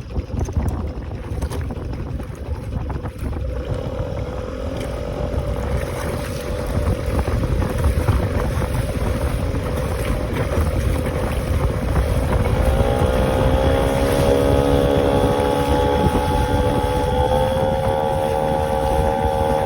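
A kayak's motor running under way, with wind buffeting the microphone. Its pitch rises in a step about two-thirds of the way through and again near the end as it speeds up.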